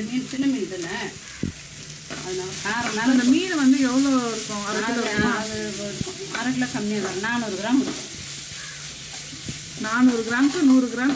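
A steel perforated spatula stirring and scraping a thick onion-tomato masala around a nonstick kadai while it fries and sizzles. From about two seconds in, the strokes come as quick back-and-forth scrapes that wobble in pitch, easing off around eight seconds and picking up again near the end.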